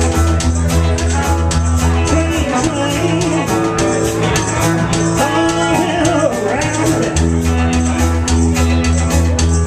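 Live band playing an upbeat rockabilly-blues number on electric guitars and drum kit, with a steady low pulse on the beat. Through the middle a lead line bends up and down in pitch, and the low part moves to another note before returning near the end.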